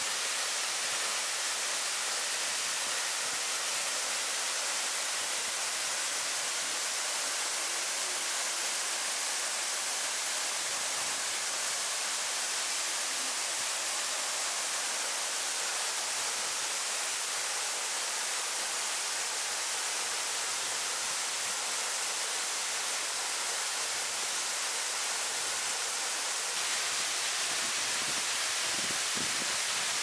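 Rushing water of a mountain stream and its cascades, a steady, even rush that does not let up.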